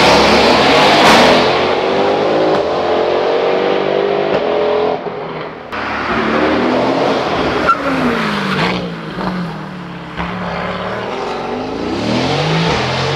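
Mercedes-AMG GT R Pro's twin-turbo 4.0-litre V8 through a Fi aftermarket exhaust, loud and under load at first. It dips briefly about five seconds in, the revs fall away about eight seconds in, and it builds again near the end.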